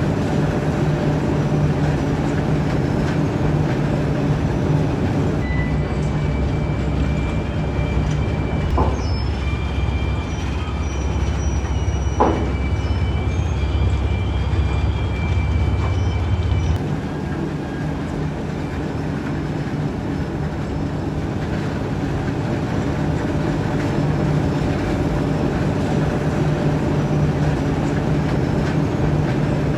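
Huge bucket wheel excavator at work: a steady low mechanical hum and rumble. For about ten seconds in the middle the rumble is heavier, and high metallic squeals ring over it.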